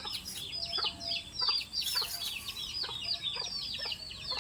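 Chicks peeping continuously, many quick overlapping falling peeps a second, with a few short lower clucks among them.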